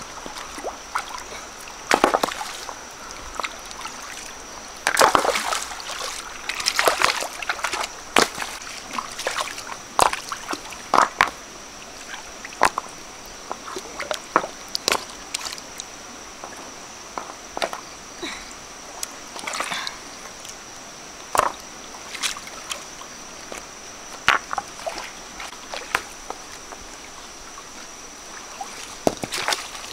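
Water sloshing and splashing in irregular, uneven splashes, some loud and some faint, over a steady high-pitched whine.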